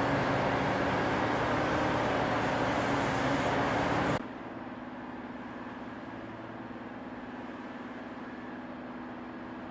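Railway station ambient noise: a loud, even rumble that cuts off abruptly about four seconds in, giving way to a quieter steady hum.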